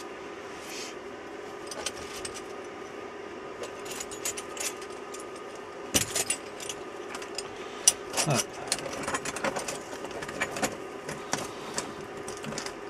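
Metal hand tools clinking and tapping against each other as a fabric tool roll is handled and packed, with sharper knocks about six and eight seconds in, over a steady faint hum.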